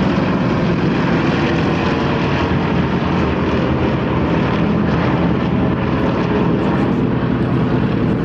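A formation of four Yakovlev propeller aircraft flying overhead, their radial piston engines droning steadily and evenly.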